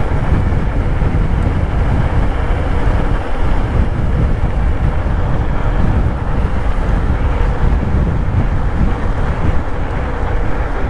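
Loud, steady wind rush buffeting the microphone of a mountain bike speeding down a road descent.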